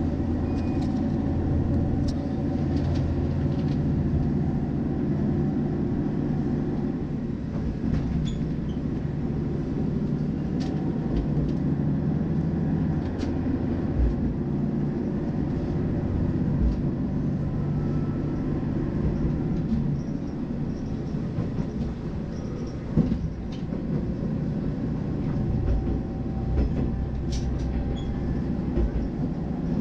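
Diesel railcar of the Nishikigawa Railway Seiryū Line running along the track, heard from inside the car: a steady engine drone with a few sharp knocks from the wheels on the rails.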